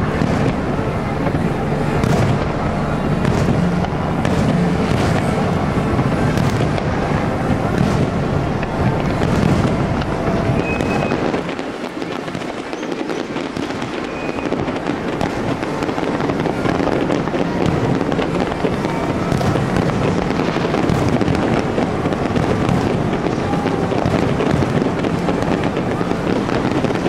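Aerial fireworks bursting in quick succession: a continuous run of booms and crackles. The deep rumble eases for a couple of seconds about halfway through.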